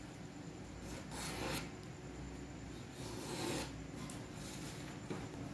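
Paper rustling and rubbing as the sheets of a handwritten assignment are handled, two soft swishes about a second in and again around three seconds in.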